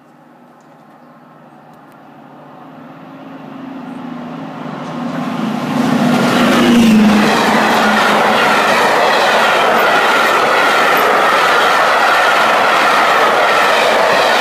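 A passenger train approaching and passing at speed, led by a Deltic diesel locomotive: it grows steadily louder over about six seconds, and the engine note drops in pitch as the locomotive goes by about seven seconds in. After that comes the steady loud rattle of the coaches' wheels clattering over the rail joints.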